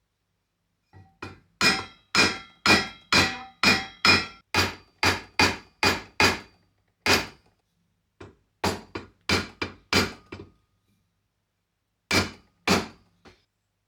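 Mallet blows on the dented foot of a silver trophy, pushing the knocked section back out to make the foot round again. The sharp strikes come about two a second in runs, with a short ring after each and brief pauses between the runs.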